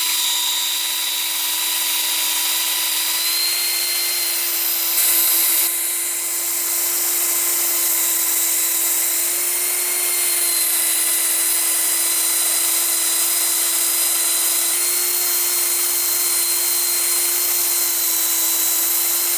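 Porter-Cable cordless drill running steadily with a metal bristle brush in its chuck, scrubbing out the eye of a steel axe head. A steady motor whine sits over the scratchy hiss of the bristles on the steel, and its pitch shifts slightly a few times.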